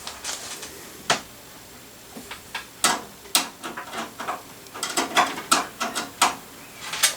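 Irregular sharp clicks, knocks and rattles of hard plastic and metal parts being handled: a single click about a second in, then a few knocks around three seconds and a busier run of clatter near the end.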